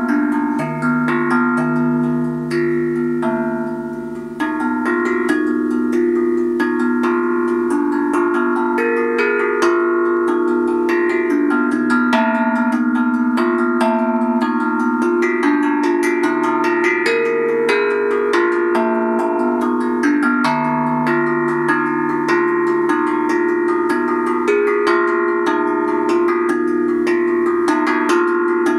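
Handpan (hang drum) played with the fingers: a steady flow of struck steel notes that ring on and overlap, forming a melody, with a low bass note sounding now and then. The sound dips briefly about four seconds in, then carries on.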